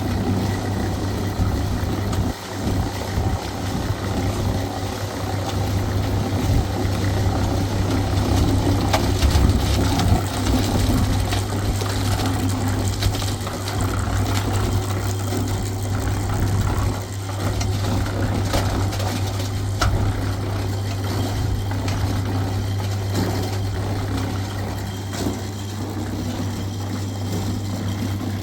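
An engine running steadily at an even idle, with scattered clicks and knocks over it.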